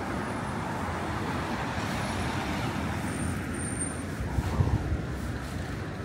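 Steady city street traffic noise, with a brief cluster of low thumps about four and a half seconds in.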